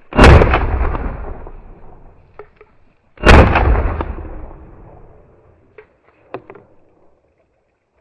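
Two shotgun shots about three seconds apart, each followed by a long fading echo. A few faint clicks come after.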